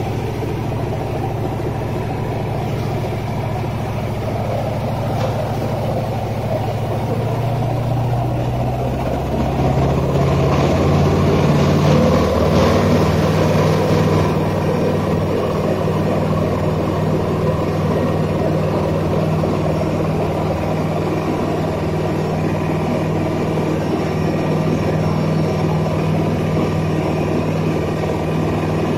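Boat engine running under way, its pitch rising and settling higher about eight to twelve seconds in as it speeds up, with rushing water from the wake.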